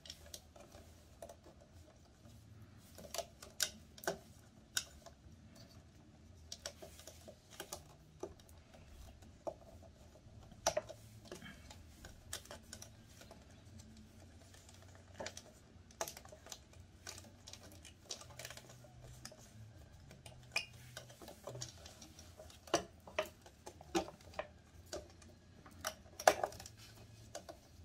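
Light, irregular clicks and taps of thin wires being pulled out of a moulded plastic wire track on a Snoo bassinet base, with a few louder plastic knocks among them.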